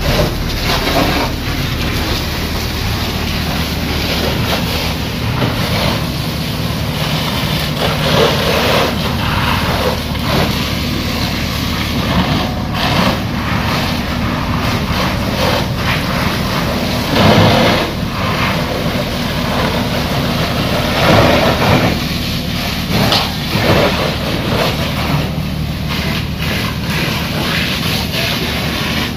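Fire engine's pump running steadily under the rushing hiss of a hose jet spraying water onto a burning vehicle, with a couple of louder surges past the middle.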